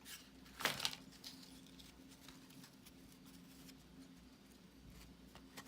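Cardboard trading cards from a 1984 Topps Football wax pack being handled: one short, sharp rustle of cards sliding off the stack about half a second in, then a few faint light ticks of handling over a low steady hum.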